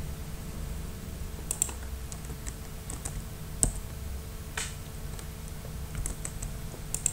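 Scattered, irregular clicks of a computer keyboard, about a dozen over several seconds, the sharpest a little over halfway through, over a steady low background hum.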